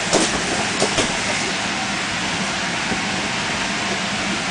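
Electric blower fan of an inflatable bounce house running steadily: rushing air with a faint hum underneath. Two light thumps come in the first second.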